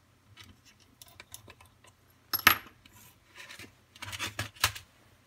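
Hard plastic clicks and clacks from a Kato HO turnout's plastic base being handled and turned over. Light clicks at first, one loud sharp clack about two and a half seconds in, and a cluster of clatter near the end.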